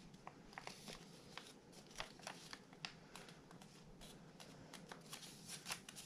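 Faint, scattered crinkles and small crackles of white paper being handled and creased by fingers, as the head of an origami flapping bird is reverse-folded.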